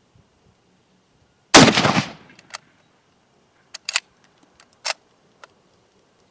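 A single shot from a Lee-Enfield No. 4 Mk1 .303 bolt-action rifle about one and a half seconds in, with a short echoing tail, followed by a series of sharp metallic clicks as the bolt is worked.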